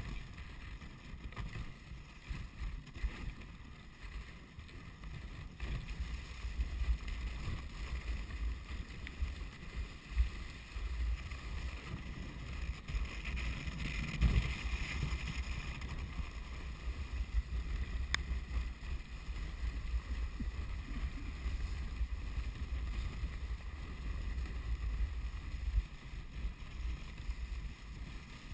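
Dog sledge runners sliding and scraping over snow: a steady rushing noise with uneven low rumble from the sledge's movement and wind on the microphone.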